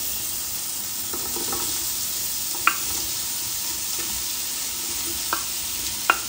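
Diced bacon frying in olive oil in an aluminium pot, a steady sizzle. Three sharp clicks come from the wooden spoon as diced calabresa sausage is pushed off a cutting board into the pot.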